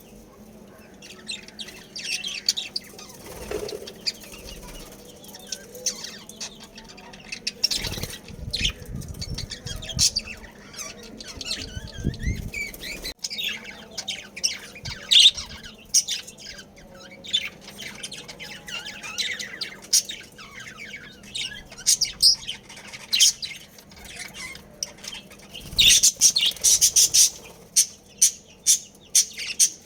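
Budgerigars chirping and chattering with short high calls, with a stretch of wing flapping partway through. Near the end comes a quick run of loud, sharp calls, about three a second.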